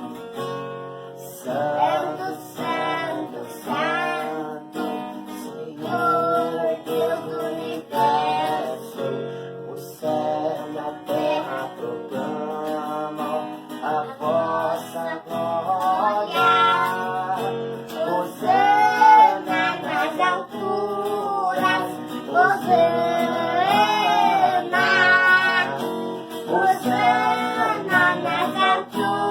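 A young boy and his father singing a duet to guitar accompaniment.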